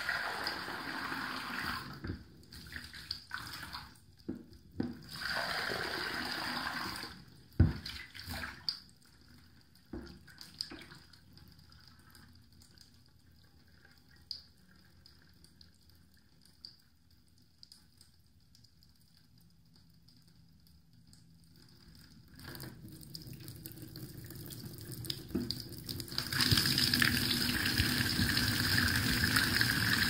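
Water running into a chrome plughole. There are a few short runs of rushing water in the first seven seconds, then a near-quiet middle with a few faint ticks. From about three-quarters of the way through, the water builds to a loud, steady rush down the drain.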